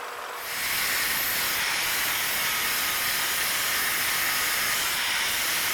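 Steady, loud hiss of a compressed-air tool, such as an abrasive blaster, cleaning rust and crud off a square steel bar. It starts about half a second in and stops abruptly when the air is shut off.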